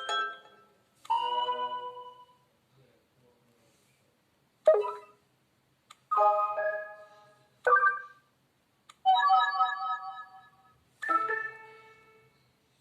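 Preloaded message alert tones from a Sony Ericsson Xperia X8 phone, played one after another. There are about seven short electronic chimes, each dying away within a second, with short gaps between them.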